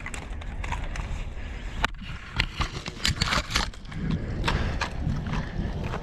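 Footsteps and the knocks and rattles of carried airsoft gear, an irregular run of sharp clicks, loudest about two to four seconds in, over a steady low rumble of wind on the microphone.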